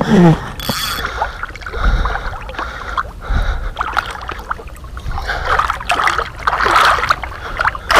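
A large asp thrashing at the surface as it is grabbed by hand in the water: irregular splashing and spattering, heaviest near the end.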